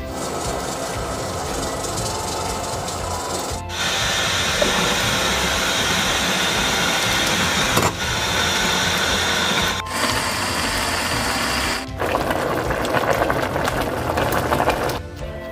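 A pot of beef brisket and seaweed hot pot boiling hard, a dense steady bubbling and hissing that changes abruptly in level several times.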